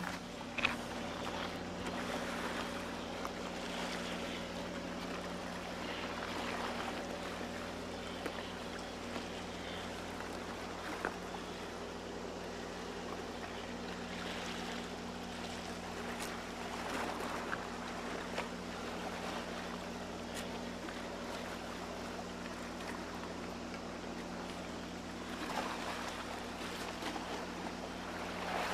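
Sea water washing and lapping against shore rocks, with a steady low hum underneath and a few faint clicks.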